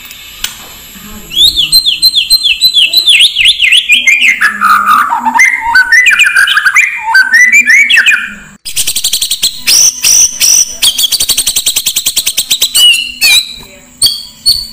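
Oriental magpie-robin (kacer) singing loudly: a quick series of slurred whistled notes stepping down in pitch over several seconds, then a dense run of rapid chattering trills. It is an excited, aggressive song of the kind used to provoke other males.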